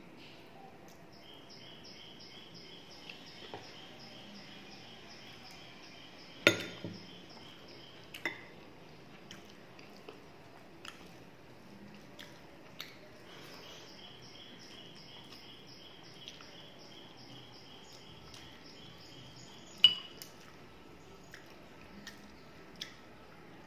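Eating by hand: fingers mixing rice and mutton curry on a plate, with occasional sharp clinks against the dishes, the loudest about six seconds in and again near twenty seconds. In the background a high, rapid chirping of about four beats a second runs twice for several seconds.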